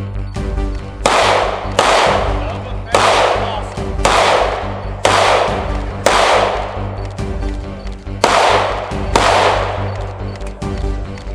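Gunshots fired one at a time, about nine of them roughly a second apart, each with a ringing tail, over background music with steady low notes.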